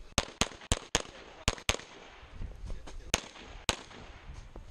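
Glock 34 9mm pistol firing about eight shots in quick strings: four fast shots in the first second, a close pair, then two more spaced about half a second apart.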